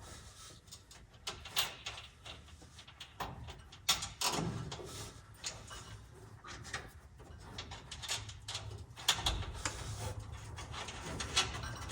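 Irregular clicks, knocks and rattles of hand work on metal parts and tools, with louder knocks about four seconds and nine seconds in.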